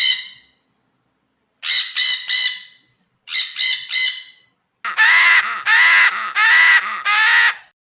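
Parrot squawking: harsh calls in quick runs of three, then four longer, fuller squawks in a row near the end.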